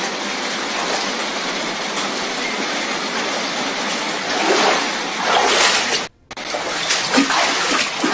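Floodwater splashing and sloshing around a person's legs as they wade through it, over a steady rush of water. The sound cuts out for a moment about six seconds in, then the splashing goes on.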